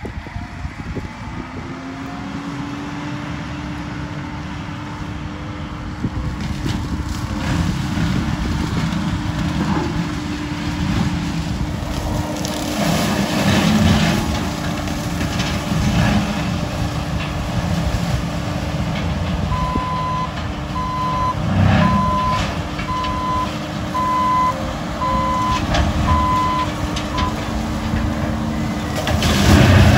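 Bobcat compact track loader running with its Vail X Series brush cutter, clearing brush: a steady engine and cutter hum with louder surges as it works into the growth. About two-thirds of the way through, its reversing alarm starts beeping, about one and a half beeps a second, as it backs up.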